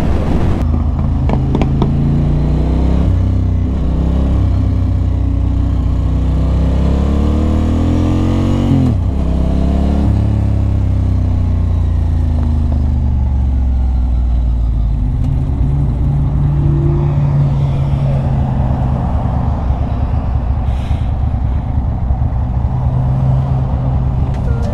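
Ducati Monster 620's air-cooled V-twin engine heard through a helmet-mounted mic, with wind hiss. The engine pitch falls and then rises again about nine seconds in, then turns lower and steadier, ending at idle.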